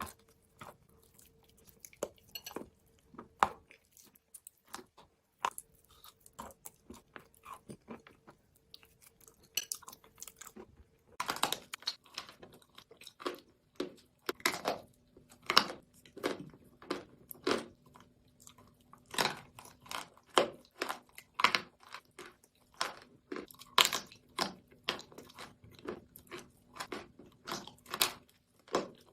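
Close-up chewing of crunchy food: soft, scattered crunches for about the first ten seconds, then louder crunching, roughly one crunch a second.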